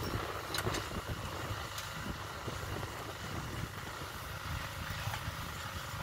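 Steady low rumble of wind and surf, with a few faint clicks in the first two seconds.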